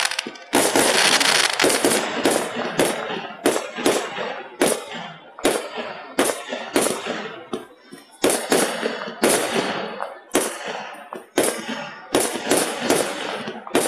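Aerial fireworks bursting in a rapid series of sharp bangs, one to two a second, each fading away before the next; the heaviest bursts come in the first couple of seconds. The sound is harshly compressed by the phone's recording.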